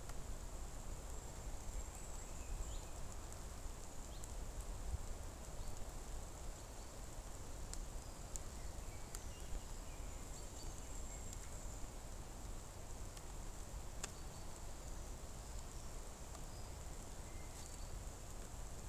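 Faint outdoor forest ambience: a steady hiss over a low rumble, with a few faint bird chirps and occasional small clicks.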